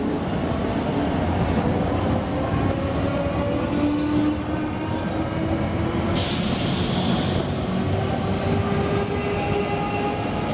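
South Western Railway Class 458 electric multiple unit pulling away, its traction motors whining in several tones that slowly rise in pitch as it gathers speed, over the rumble of the train. A brief high hiss cuts in about six seconds in.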